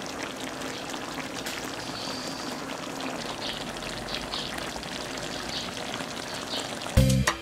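Sweet and sour sauce simmering around fried tilapia in a wok: a steady bubbling crackle. Music starts abruptly near the end.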